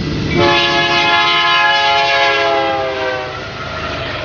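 Train horn sounding one long multi-tone blast, starting about half a second in and sagging slightly in pitch near its end, over the noise of a running train.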